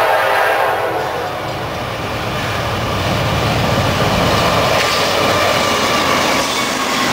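Norfolk Southern freight train passing close by: the lead diesel locomotive's horn ends in the first second, then the locomotives' rumble and the rush of the train grow louder as they pass.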